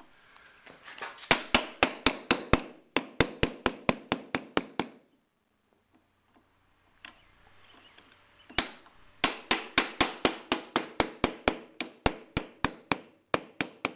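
Hammer driving a sharp chisel against a stuck screw in a scooter's brake fluid reservoir, in two fast runs of about five ringing metal blows a second, with a pause of a few seconds between them. The screw has been heated with an iron to free it.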